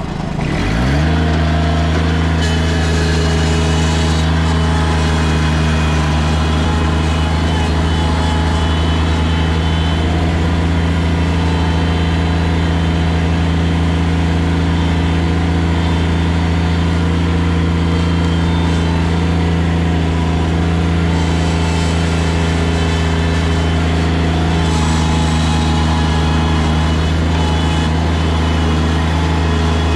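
Wood chipper's engine throttling up in the first second, then running steady at high speed.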